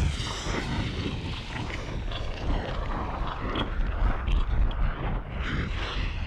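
Volcano lava-and-fire sound effect: a continuous deep rumble with a hissing roar over it and scattered crackles and pops.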